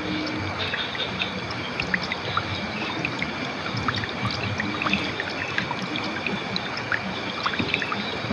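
River water flowing and trickling steadily, with many small splashes and drips.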